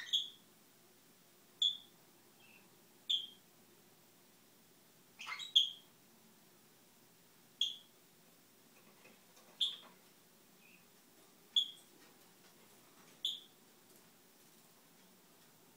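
Brown-headed parrot imitating a smoke alarm: eight short, high beeps, repeated roughly every one and a half to two seconds. A brief raspy sound comes just before the fourth beep.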